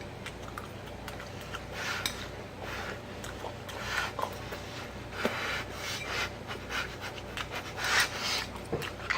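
A person eating scrambled eggs: a run of irregular short rasping, scraping noises, busier in the second half.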